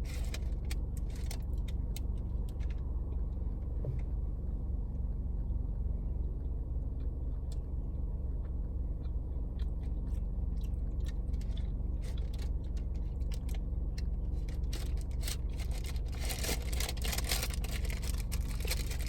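Close-up chewing of an oatmeal chocolate chip cookie: scattered small crunches and mouth clicks over a steady low rumble, with a spell of rustling a few seconds before the end.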